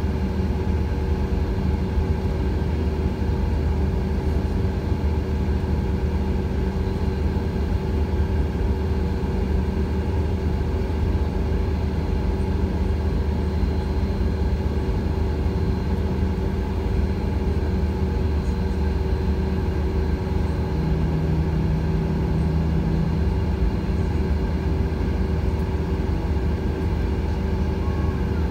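Airliner cabin noise while taxiing: the jet engines at low taxi power give a steady rumble with several constant hum tones, and a slightly stronger hum comes in for a couple of seconds about three-quarters through.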